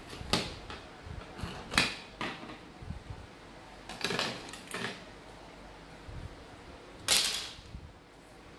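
Plastic parts of a small handheld keyboard being handled: the case and membrane circuit sheet click and clack against each other and the tabletop several times, with a longer, louder rustle about seven seconds in.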